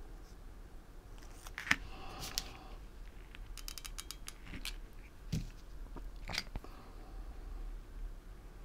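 Small clicks and knocks of crafting tools being handled on a wooden table as a hot glue gun and then metal tweezers are used on a hair clip. A sharp click a little under two seconds in, a quick run of ticks around four seconds in, and a dull knock soon after.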